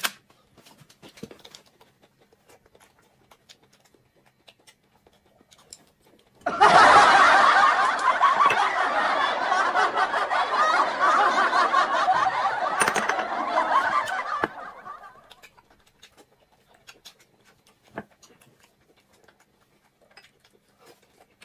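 A dubbed-in laughing sound effect, 'ha ha ha' laughter that starts suddenly about six seconds in and runs for about eight seconds before fading out. Around it there are only faint scattered clicks.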